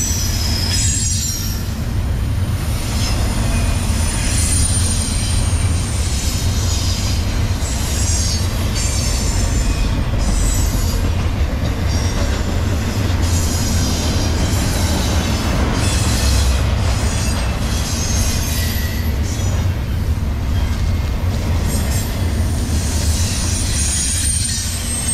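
Double-stack intermodal container freight train rolling past close by: a steady rumble of wheels on rail, with high-pitched wheel squeal that comes and goes.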